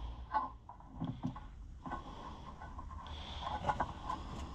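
Hands working a throttle cable and its rubber grommet into a hole in a tractor's dash sheet metal: scattered faint clicks, rubs and light knocks over a low steady hum.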